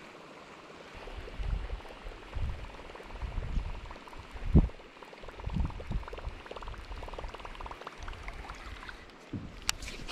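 Water gurgling and sloshing against a kayak hull, in a run of uneven low thumps.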